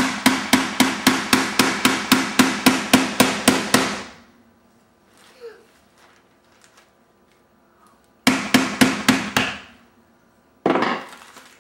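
Hammer striking the handle of a screwdriver held against a coconut, driving it into the shell: a rapid run of sharp blows, about four or five a second for some four seconds. After a pause comes a shorter run of about five blows, then one more blow near the end.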